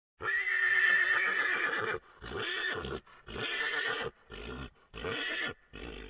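A horse whinnying: one long high call lasting about two seconds, followed by five shorter pulses.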